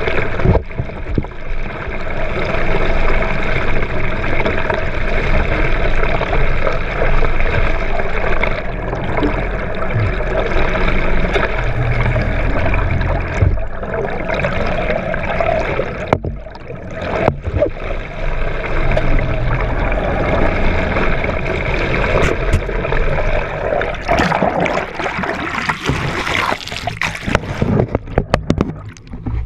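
Water rushing and splashing along the hull of a sportfishing boat, with the boat's engine running steadily underneath and a few sharp knocks and splashes near the end.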